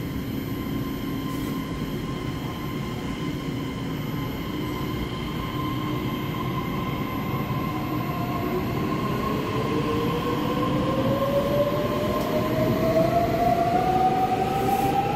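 Taiwan Railways EMU3000 electric multiple unit pulling out and accelerating past the platform: a steady rumble with a whine that rises in pitch from about eight seconds in, getting louder as the train gathers speed.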